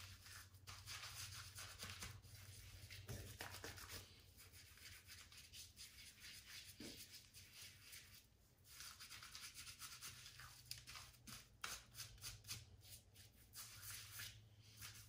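Faint, soft rubbing of hands spreading thick shaving soap lather over a bearded face.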